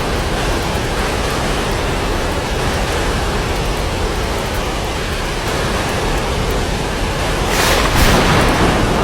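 Steady rain in a thunderstorm, a dense even wash of sound, swelling briefly louder near the end.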